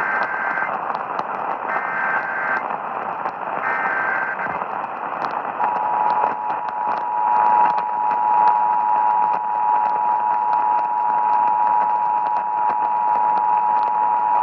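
Emergency Alert System signal heard through a radio receiver's static and crackle. It opens with three short bursts of screechy SAME header data tones, each about a second long and about a second apart. About five and a half seconds in, the steady two-tone EAS attention signal begins and holds.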